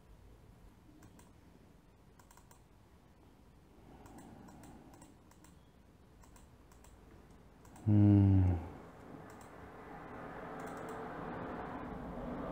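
Computer mouse clicking a handful of times. About eight seconds in, a short, loud low tone sounds for under a second and falls slightly in pitch, followed by a steady rushing murmur that grows louder toward the end.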